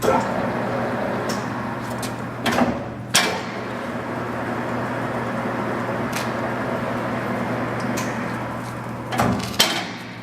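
Jet 15x50 metal lathe running under power, its geared headstock and feed giving a steady mechanical running noise over a low hum, with sharp clunks of the control levers about two and a half and three seconds in. Near the end the running noise stops with a couple more clunks.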